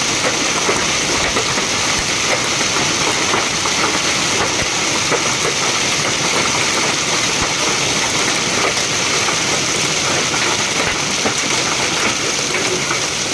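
Hailstorm: hailstones and heavy rain pelting down, a dense steady hiss peppered with small ticks of stones striking.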